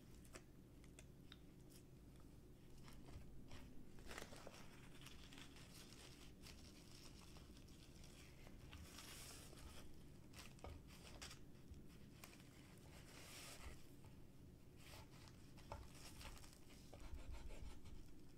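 Faint crinkling and crackling of a dry gim (laver) sheet being rolled by hand around soft tofu on a wooden board, with light scattered clicks and taps. Near the end a knife cuts through the seaweed roll with a crisp crunch, a little louder. A faint steady low hum sits underneath.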